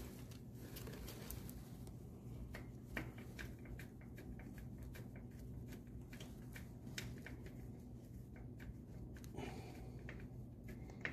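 Socket ratchet clicking as the oil cooler line bolt on the oil filter adapter housing is run in: a faint run of quick, uneven clicks.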